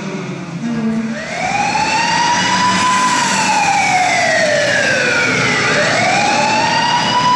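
Wailing siren sound effect in the dance's soundtrack, played over the auditorium's sound system. It starts about a second in, makes one slow rise and fall in pitch, and begins a second rise near the end.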